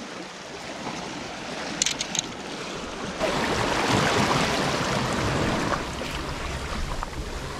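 Sea water washing in the shallows. It swells about three seconds in and eases off again a few seconds later, with a few light clicks near two seconds.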